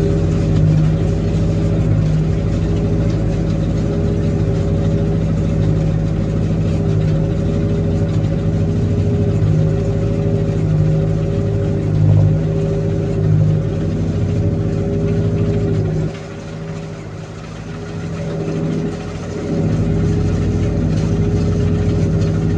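Classic tractor engine running steadily, with its note and loudness dipping for a few seconds about two-thirds of the way through before picking back up.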